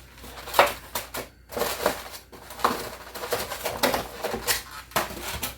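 Egg containers being handled: an irregular run of sharp clicks and light knocks as eggs and containers are moved about, the loudest knock about half a second in.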